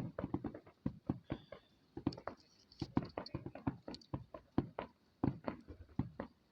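Fireworks going off: an irregular rapid series of sharp pops and bangs, about three or four a second, with a short lull near the start.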